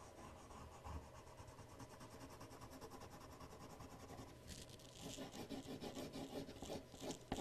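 Coloured pencil shading back and forth on drawing paper: a faint, rapid scratching of strokes that grows louder about halfway through.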